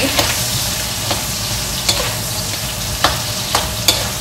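Diced carne seca and sliced calabresa sausage sizzling in hot oil in a steel wok, stirred with a spatula that scrapes and clicks sharply against the pan about six times.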